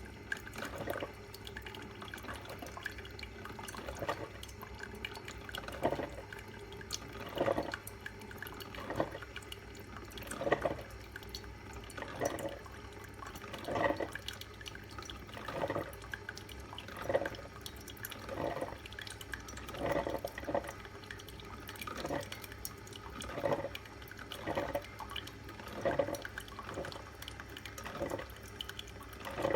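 Salter one-cup filter coffee maker brewing: hot water sputtering and coffee dripping in short pulses about every one and a half seconds, over a low steady hum.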